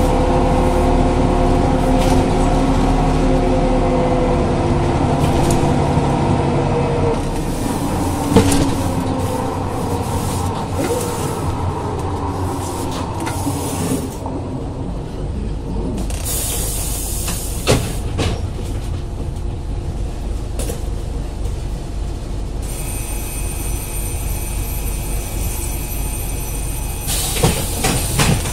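1987 Ikarus 415 city bus with a DAF LT 160 diesel and ZF 4HP 500 automatic gearbox running under way: the engine and gearbox whine falls steadily in pitch as the bus slows. It goes quieter, with short hissing bursts about halfway through and again near the end.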